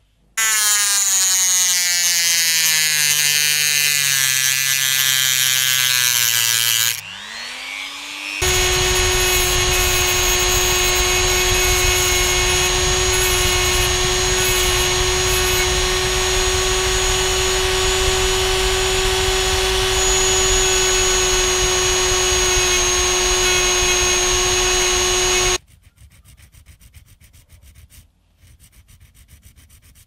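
Dremel rotary tool with a thin cut-off disc cutting through a Wi-Fi card's circuit board. The motor's whine sinks steadily in pitch for the first six seconds or so, dips briefly and climbs back up, then runs at a steady high whine before stopping abruptly about 25 seconds in.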